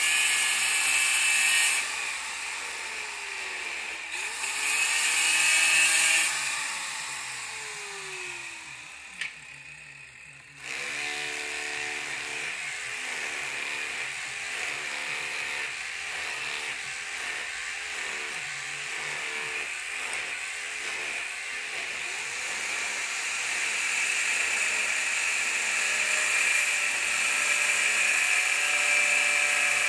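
Power tools running on a construction job site, in short clips cut together, so the sound changes abruptly a few times; in one clip a tool's pitch falls as it winds down.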